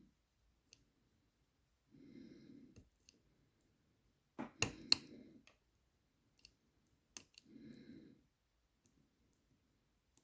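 Lever-lock pick and tension wrench working the levers of a Chubb Cruiser lever lock: a few sharp metallic clicks, loudest in a cluster about halfway through, between slow breaths.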